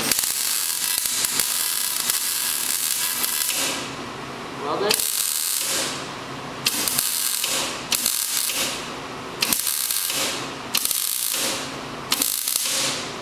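Wire-feed welder arc crackling as a steel tube frame is welded: one bead of nearly four seconds, then six short welds of about a second each, most starting with a sharp snap as the arc strikes.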